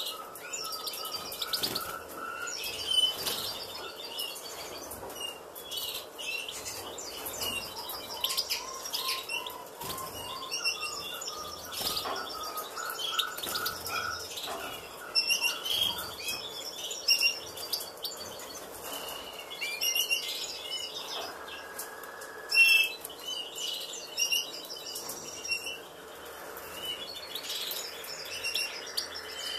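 Small cage birds chirping and twittering in many short high calls, with two runs of lower repeated notes in the first half. A few short sharp sounds are scattered through, the loudest about two-thirds of the way in.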